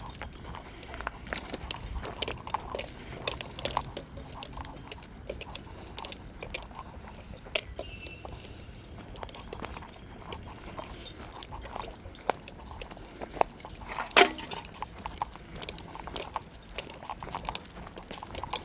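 Footsteps crunching irregularly on dry ground and leaf litter, with a sharper snap about fourteen seconds in.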